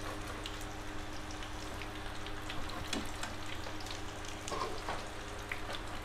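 Spring rolls (chả giò) frying in hot oil in a frying pan: a steady sizzle with scattered small pops and crackles.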